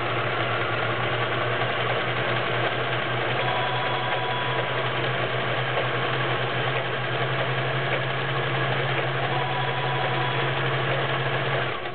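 Kenmore 385.1254 electric sewing machine running steadily at speed while stitching a stretch stitch, then stopping near the end. The machine is all-mechanical with plastic gears, freshly oiled and smooth running.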